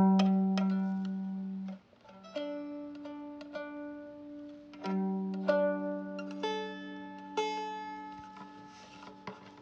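Instrumental background music: short plucked notes that ring and fade, over long held low notes.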